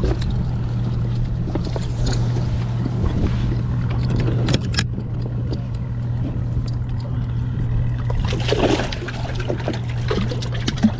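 Steady low hum of a machine running aboard a bass boat, with scattered handling clicks and a sharp knock about four and a half seconds in as the livewell area is worked.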